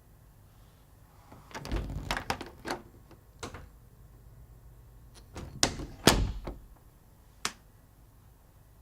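A house door being opened and closed: a run of handle and latch clicks and knocks, then the door shuts with a loud thud about six seconds in, followed by a single click near the end.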